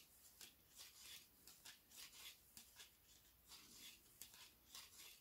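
Faint soft clicking and rubbing of knitting needles and yarn as knit stitches are worked, a few light strokes a second.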